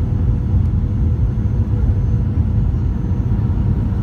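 Steady low rumble of a jet airliner heard from inside the cabin on approach: engine and airflow noise, with a faint steady hum above it.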